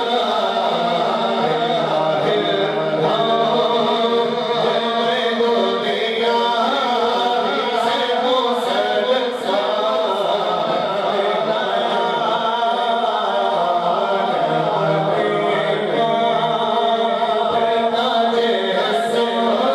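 Naat recitation: a voice sings an Urdu devotional poem unaccompanied, in a continuous chanted melody.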